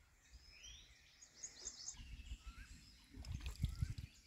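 Faint birdsong: short chirps and a small wavy whistled call repeated a few times. Low rumbling bursts come in about three seconds in.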